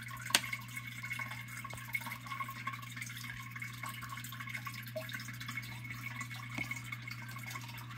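Small water drips and a few short clicks from a metal spoon scooping snails out of a plastic cup of water and tipping them into an aquarium, over a steady low hum. The sharpest click comes just after the start.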